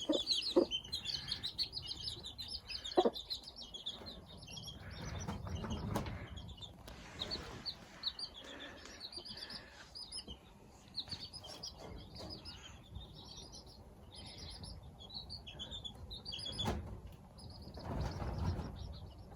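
Young chicks peeping: a steady stream of short, high cheeps while the chicks have got cold and are being brooded back under the hen. There is some soft rustling underneath.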